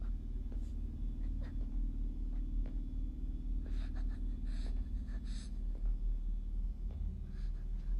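A low steady drone, with faint footsteps on a hard floor about once a second and three short breaths in the middle.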